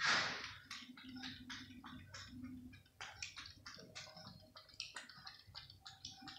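Cat lapping milk from a plate: a steady run of quick, wet clicks, about four or five a second. A short, loud rustle comes at the very start.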